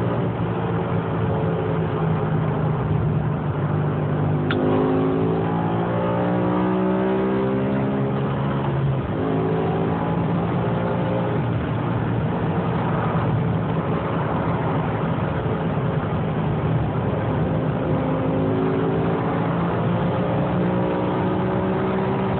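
BMW M6's 5.0-litre V10 under hard full-throttle acceleration, its pitch climbing through each gear and dropping back at each upshift, over heavy wind and road noise at high speed.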